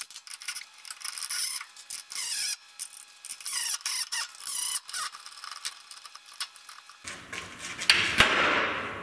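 Hand tools working metal parts: a ratchet wrench clicking with squeaks and rubbing, then a sharp metallic knock about eight seconds in.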